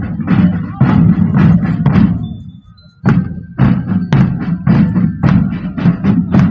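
Marching drum band's drums beating out a fast run of strikes, about three to four a second, with heavy low drums underneath. The drumming breaks off briefly a little past two seconds in, then comes back in.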